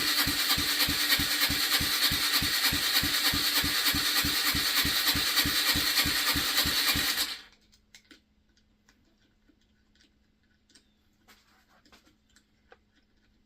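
Yamaha TT-R125's single-cylinder engine turning over on its electric starter without firing, a steady churn with about four compression pulses a second, cranked to prime the oil after a crankshaft rebuild. The cranking stops suddenly about seven seconds in, leaving a few faint clicks.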